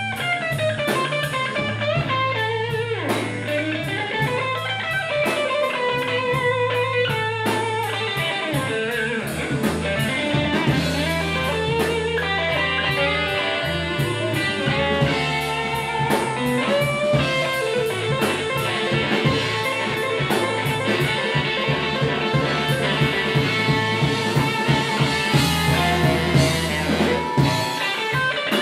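Live blues band playing an instrumental passage: electric guitar lines over electric bass and a drum kit, with no vocals.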